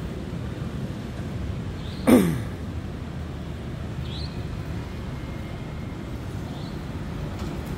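Steady low rumble of distant road traffic. About two seconds in, a short loud sound slides quickly down in pitch, with a few faint high chirps later on.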